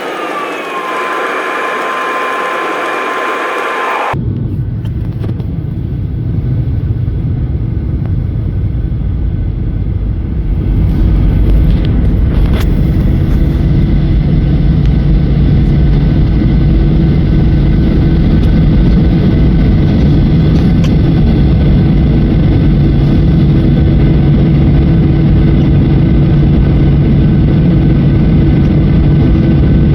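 Boeing 737-800 jet engines heard from inside the cabin. A whine glides down and settles to a steady pitch, then about four seconds in it gives way abruptly to a heavy rumble with a low drone. The rumble grows louder over the next several seconds and then holds steady.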